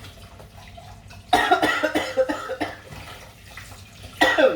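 A person coughing: a loud fit of coughs about a second in, then another short cough near the end.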